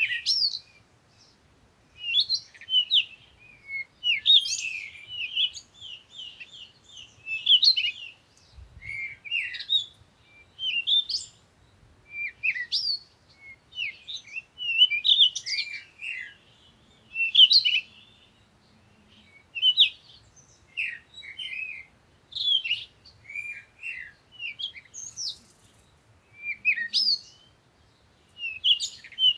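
Small birds chirping, in short runs of quick high chirps every second or two with brief pauses between.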